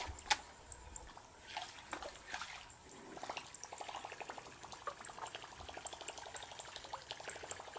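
Faint trickling and light splashing of water, with a fast run of fine ticks starting about three seconds in from a fishing reel being wound in as a topwater lure is retrieved.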